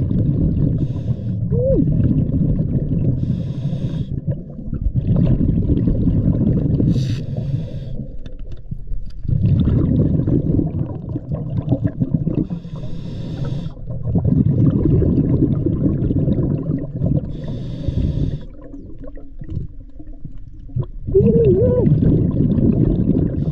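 Scuba diver breathing through a regulator underwater: a hiss on each inhale every several seconds and a low bubbling rumble on each exhale.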